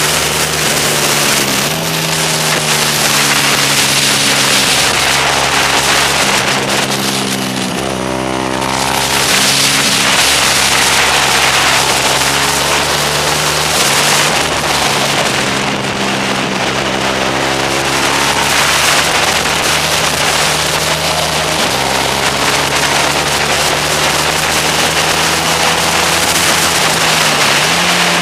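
Motorcycle engine heard from on board the bike: the revs climb and fall again and again through gear changes and braking, with a steep drop in pitch about eight seconds in. Wind rushes over the microphone the whole time.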